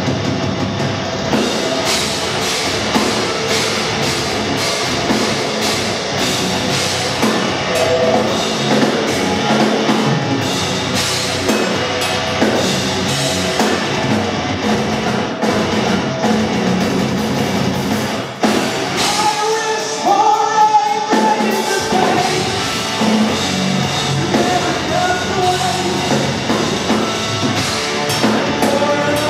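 Heavy metal band playing live: distorted electric guitars, bass and drum kit with vocals. About two-thirds of the way through, the bass and kick drum drop out for a few seconds, leaving the guitars, and then the full band comes back in.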